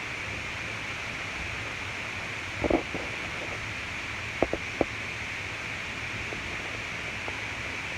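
Steady background hiss, with a brief soft sound near the three-second mark and three quick light clicks about a second and a half later.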